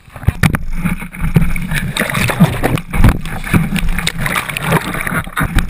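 Surf splashing and rushing over a skimboard as it rides through breaking whitewater, picked up close by a camera mounted on the board, with many sharp knocks and thumps. It starts suddenly a moment in.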